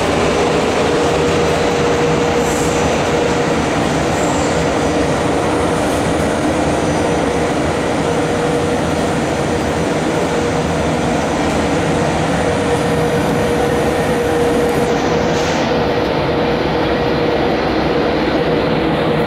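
81-71 series metro train standing at an underground platform with its doors open, giving a steady, loud running noise with a held humming tone. Near the end the higher hiss in it drops away.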